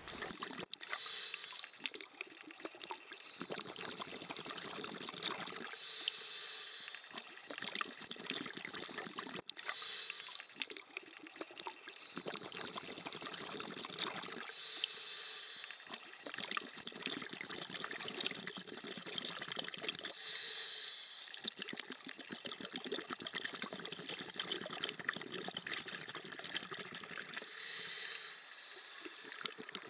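Scuba breathing heard underwater: a regulator hiss on each inhale every five seconds or so, each followed by a longer stretch of bubbling exhaled air.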